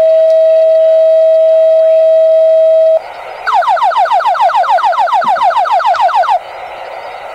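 Fire dispatch radio alert tones: a steady paging tone held about three seconds, then after a short gap a rapid series of falling electronic sweeps, about seven a second, lasting about three seconds.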